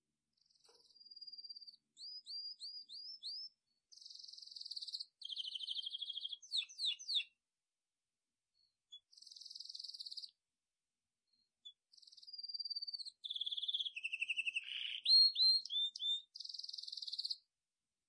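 A songbird singing long, varied phrases of slurred whistled notes, buzzy trills and quick chirp series, in three bouts with short pauses between them.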